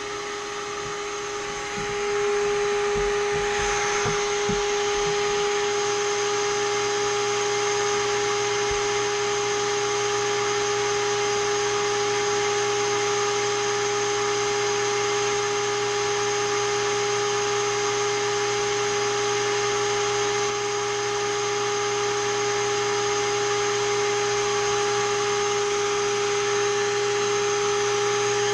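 Seamer Down Now carpet-seam cooler blowing air onto a freshly ironed hot-melt seam, its motor running steadily with a whine and a rush of air. It gets louder about two seconds in, with a few light knocks of handling early on.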